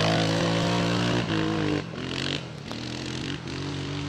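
Honda Foreman Rubicon 500 ATV's single-cylinder engine pulling away under throttle, its note fading as the quad drives off, with the level dropping in a few steps.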